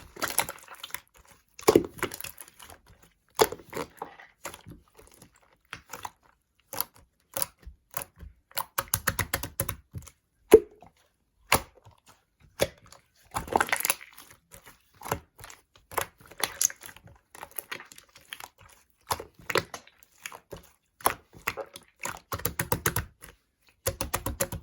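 Slime being played with by hand: sticky clicks and small air-bubble pops, with several runs of quick crackling among scattered single snaps.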